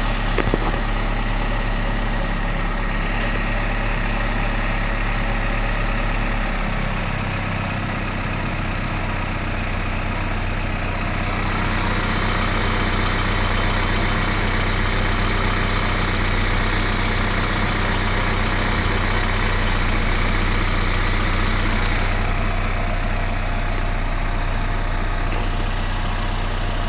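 An engine or motor running steadily with a constant hum, its low tone shifting about six and a half seconds in. It is a strange noise whose cause is unknown.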